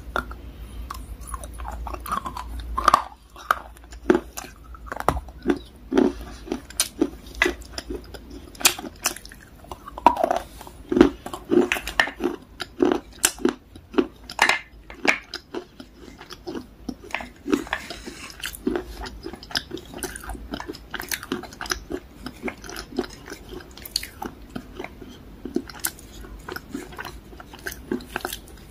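Wet chewing and biting of soft, water-soaked dark grey clay pieces: sticky mouth clicks and smacks at an irregular pace, several a second, with fingers squishing through the wet slurry.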